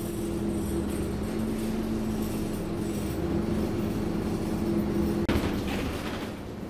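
Scania Omnicity N230UD bus under way, heard from inside the lower deck: a steady engine and drivetrain hum in two even tones. About five seconds in the sound cuts out for an instant, then a short hiss follows and fades.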